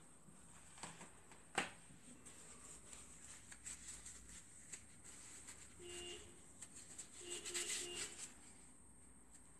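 Faint clicks and taps of hands handling the fuser's plastic and metal parts, with one sharp click early on and short squeaky chirps around the middle and again near the end.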